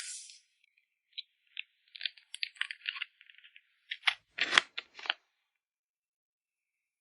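Close-up handling of plastic packaging while photocards are packed: a run of small crinkles and clicks, then a few sharper taps with a dull thump about four to five seconds in.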